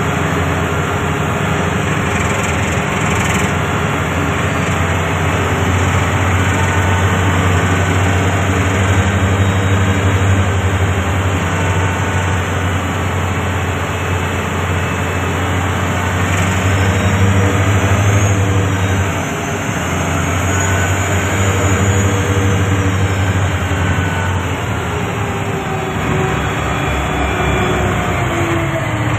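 Komatsu HD465-7 haul truck's six-cylinder diesel engine running steadily at about 1,300 to 1,700 rpm as the truck drives at low speed, with a deep, even hum.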